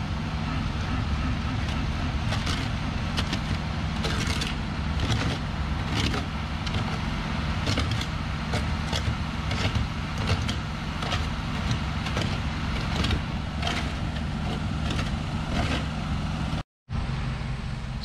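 Concrete mixer truck's diesel engine running steadily with a constant low hum while wet concrete comes down the chute, with repeated short scrapes of hand tools working the concrete. The sound cuts out briefly near the end.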